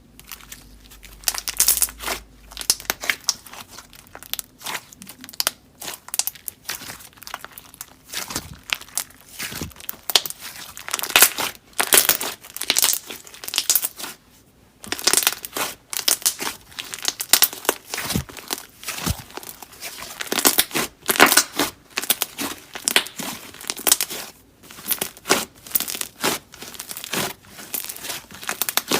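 Slime being squished and kneaded by hand, giving a dense, irregular run of crackling and popping clicks, with a short pause about halfway through.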